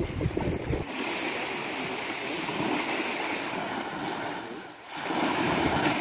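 Small sea waves washing onto a sandy beach: a steady hiss that dips briefly a little before five seconds in. Wind buffets the microphone during the first second.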